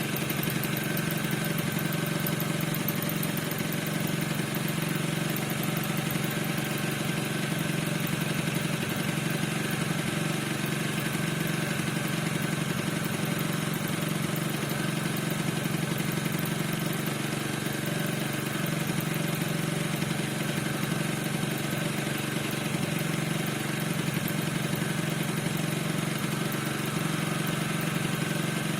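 Piaggio NRG 50 scooter's 50 cc two-stroke engine idling steadily, with a constant high squeak over the engine note. The owner cannot find the cause of the squeak.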